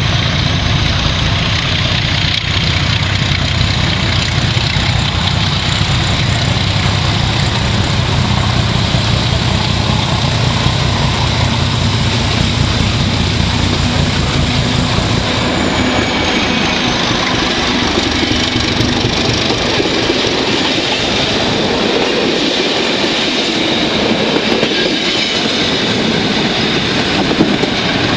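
Class 749 'Bardotka' diesel locomotive 749.107 hauling a train of double-deck coaches past. The deep diesel engine sound is strongest as the locomotive approaches and passes, about halfway through. It then fades as the train draws away, leaving the coaches' wheels rolling on the rails.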